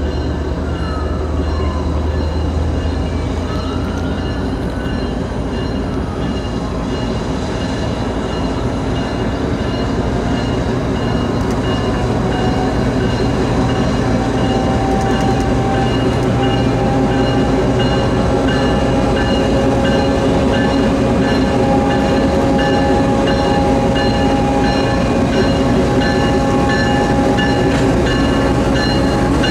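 CSX freight train's diesel locomotives approaching and passing close by, a steady engine rumble with a whine that grows louder through the second half. The whine drops in pitch near the end as the lead locomotive goes by.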